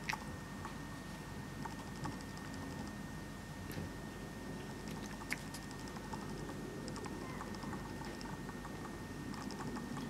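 Domestic cat chattering at birds, the excited 'hunting sound' of a cat watching prey it cannot reach: a few short runs of quick, soft clicks.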